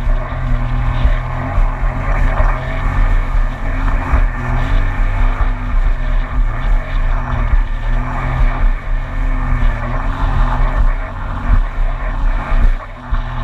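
2019 Yamaha EX WaveRunner's three-cylinder four-stroke engine running steadily under way, with water spray rushing along the hull. The engine dips briefly near the end.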